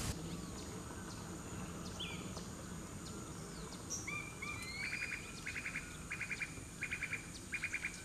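Wilson's snipe calling: a few scattered short notes, then from about halfway a run of quick stuttering call bursts, five or so in a row, over a faint steady hiss.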